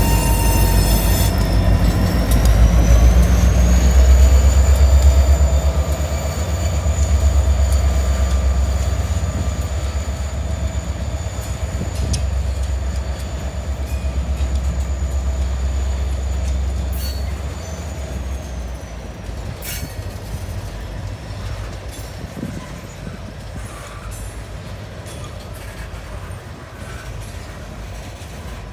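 Freight train of tank cars and covered hoppers rolling past on the wye curve. A high steady wheel squeal rises in pitch over the first few seconds, holds, and drops away about 18 seconds in. Under it, the deep rumble of the diesel locomotives and cars fades as the train moves off, with a few sharp clicks.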